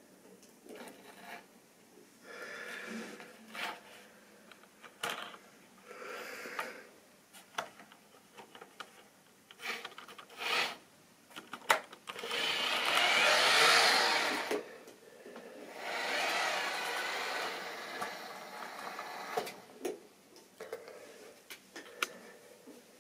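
Small electric motor of a model diesel locomotive whirring in two spells, the first about twelve seconds in and the second a little later, each lasting a few seconds. Scattered clicks and knocks come from the stock being handled on the track.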